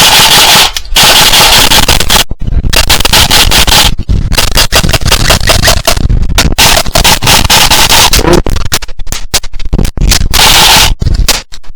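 Loud, distorted rush of wind buffeting a small action camera's microphone, cutting in and out sharply many times.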